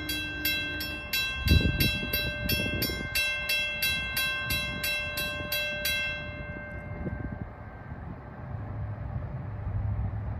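Railroad grade-crossing warning bell ringing steadily at about three strikes a second, then stopping about six seconds in. Near the end there is a low rumble of an approaching train.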